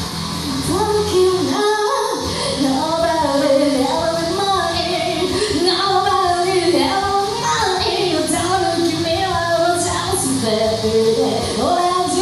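A woman singing karaoke in Japanese over a loud rock backing track, her high voice carrying the melody in continuous sung phrases.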